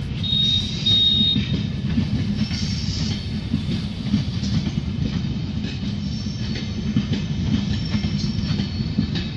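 Humsafar Express passenger coaches rolling slowly past on the rails: a steady low rumble of wheels on track, with a high wheel squeal about half a second in and fainter squeals later on.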